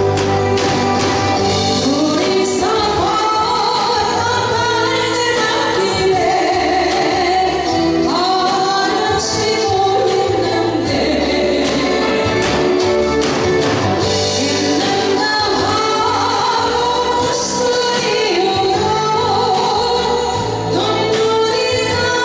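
A woman singing a slow Korean ballad with a live band accompanying her, the voice gliding between held notes over sustained chords and bass.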